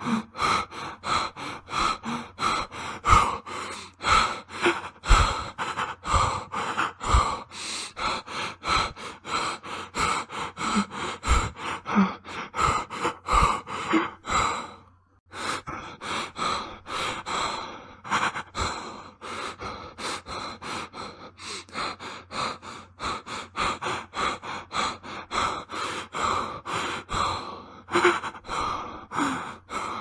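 A man breathing fast and heavily, frightened panting with quick short breaths in and out, several a second. The breathing stops for a moment about halfway through, then resumes at the same pace.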